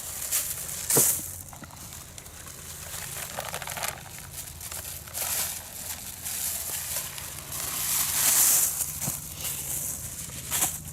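Irregular rustling and crunching noises, with a sharp knock about a second in and a longer, louder rustle near the end.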